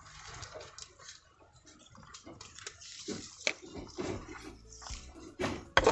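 Rabbits eating feed pellets from a PVC-pipe feeder: scattered small crunches, clicks and rattles of pellets, with one louder knock near the end.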